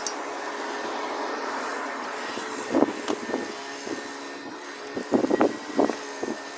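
A steady engine-like drone runs in the background. Two short clusters of clicks and knocks come about three seconds in and again about five seconds in, from the clamp and block of wood being handled.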